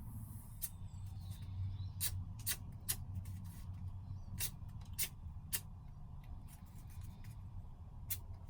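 Japanese kitchen knife worked on a leather strop: light rubbing with about eight sharp, irregular clicks as the blade meets and leaves the strop, over a steady low hum.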